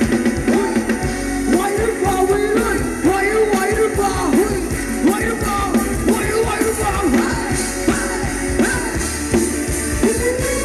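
Live band playing Thai ramwong dance music: a melody line arching up and down over a steady drum beat.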